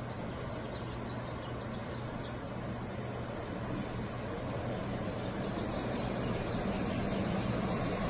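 Steady wash of ocean surf under a low steady hum, with a few faint, high bird chirps in the first few seconds.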